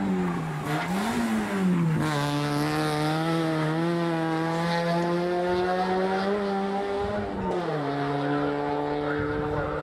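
Citroën Saxo 1600 race car's four-cylinder engine revving hard under full throttle through the gears. The note falls at a gear change about two seconds in and again near the end, and holds high and rises slowly in between.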